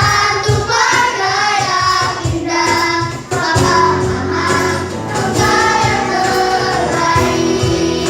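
A small group of young voices singing a song together over instrumental accompaniment.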